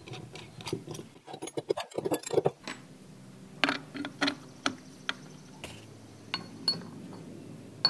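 Steel mounting brackets, bolts and nuts clinking and knocking as they are fitted to a gate opener's motor arm on a wooden workbench. The sharp taps are irregular, and a few ring briefly near the end.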